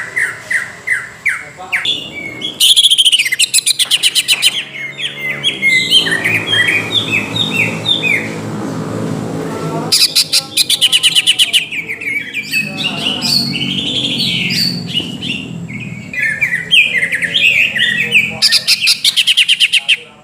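Cucak ijo (green leafbird) in full song: a loud, fast chattering stream of varied high notes, broken by very rapid trills about three, eleven and nineteen seconds in. A lower, buzzy sound runs beneath from about six to ten and thirteen to sixteen seconds in.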